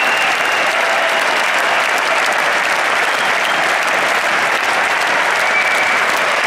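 Large arena concert crowd applauding and cheering, a steady dense wall of clapping.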